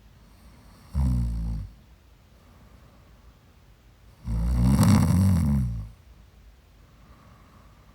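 A woman snoring in her sleep: one short snore about a second in, then a longer, louder snore around four seconds in.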